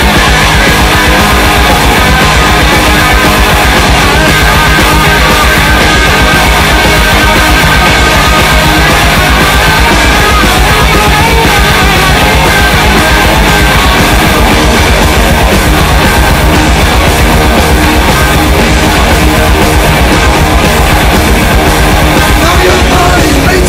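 Loud rock music, steady and without breaks.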